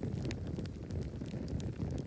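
Campfire burning: wood crackling and popping in quick, irregular snaps over a steady low noise from the flames.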